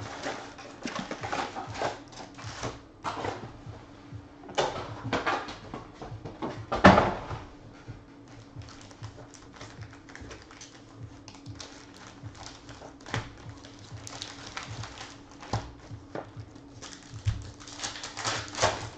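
Foil trading-card packs (Panini Select basketball) being handled and torn open, making irregular crinkling and crackling, loudest about seven seconds in and again near the end. A faint steady low hum underneath.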